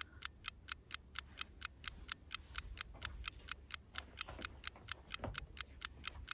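Fast, even clock-style ticking, about five ticks a second, a timer sound effect counting off a timed one-minute hold.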